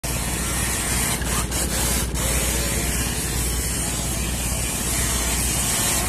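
Battery-powered remote-control speed boat running fast across the water, its hull throwing up a steady hiss of spray over a low rumble, with a few short knocks between one and two seconds in.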